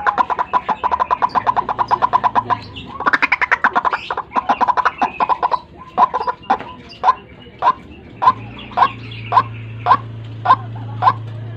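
White-breasted waterhen (ruak-ruak) calling: a fast run of repeated notes, then slowing to evenly spaced single notes about two a second. This is the call used as a lure to draw the bird in.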